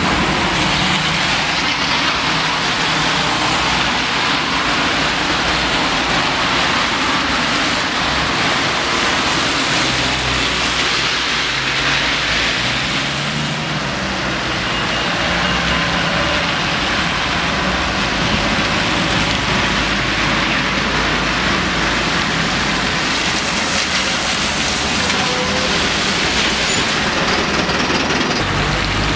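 Road traffic on a wet street in the rain: a steady hiss of tyres on wet tarmac over the low diesel running of passing double-decker buses, with an engine note rising around the middle.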